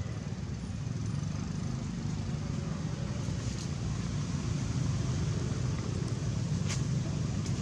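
Low, steady rumble of a motorbike engine on the road nearby, growing a little louder about halfway in. A few faint sharp clicks come over it.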